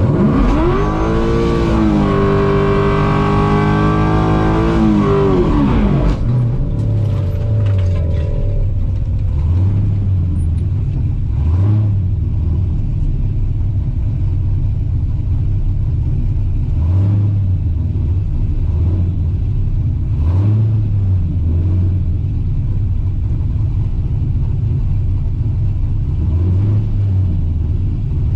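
Car engine held at high revs for about six seconds, its pitch rising and dipping. It then drops back to a low, uneven idle with a brief throttle blip every few seconds.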